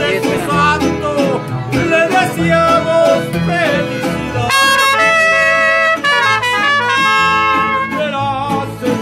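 Mariachi band playing live: trumpets over strummed guitars and a bass line, with the trumpets holding a long chord about halfway through.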